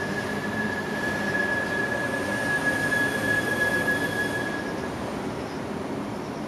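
Steady mechanical rumble with a thin, high squeal held over it, which stops about five seconds in.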